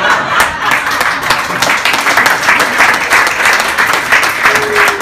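Live audience applauding, a dense patter of many hands clapping at once.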